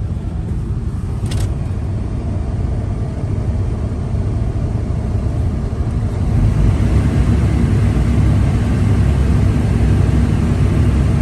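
Diesel engine of a Kobelco SK140 crawler excavator running with a steady low rumble, growing louder about six seconds in. A brief click sounds about a second in.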